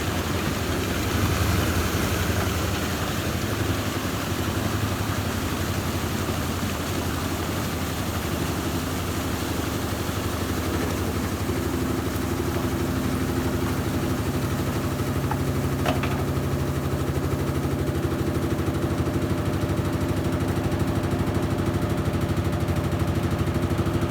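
Brastemp Total 7 kg (BWL07) washing machine spinning, its motor and drum running with a steady, rapid rattling vibration because the machine is out of balance. A steadier hum comes in about halfway through.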